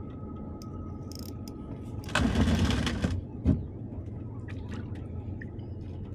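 Steady wind rumble on the microphone. About two seconds in comes a rushing splash lasting about a second, then a single sharp knock, from a kayak paddle swung into the water and against the hull.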